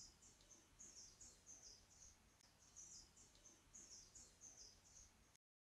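Near silence with a small bird's faint chirping in the background: short high chirps repeating two or three times a second over a low hum. The sound cuts to dead silence near the end.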